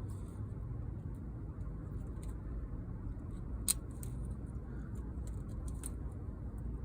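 Scattered light clicks and scrapes of hand work on a camper window screen as the mesh is fitted into its metal frame, with one sharper click about halfway through, over a steady low hum.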